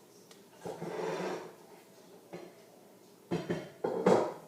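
A pan being got out of the kitchen cupboard: a scraping rustle about a second in, then several sharp metal clanks near the end as it is handled and set down.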